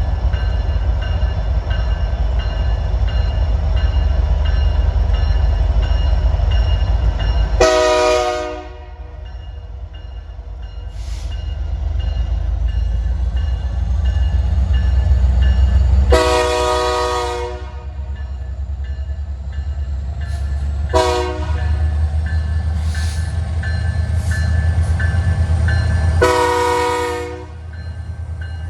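Diesel-electric locomotive (CP SD70ACU 7020) working under throttle with a heavy low rumble. Its air horn sounds four times: long, long, short, long, the grade-crossing warning signal.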